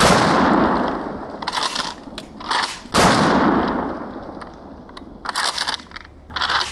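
Ithaca Model 37 pump-action shotgun being slam-fired, the trigger held down so that each shell fires as the slide closes. There are two blasts about three seconds apart, each ringing out for about a second, with the clacking of the slide being racked between them.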